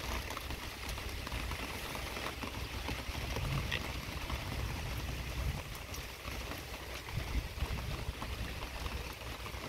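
Heavy thunderstorm rain falling steadily, a dense hiss with scattered sharp drip ticks and a fluctuating low rumble underneath.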